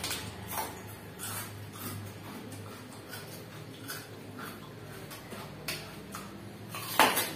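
Soft, irregular clicks and mouth noises from a person chewing a raw red chili, with one louder, sharper noise about seven seconds in. A faint steady hum lies underneath.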